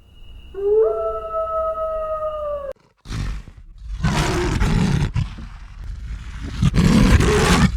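An animal's drawn-out howl-like call, held for about two seconds and sagging slightly in pitch, then ending abruptly. After that come several loud, rough roars from a large animal, in bursts about a second long.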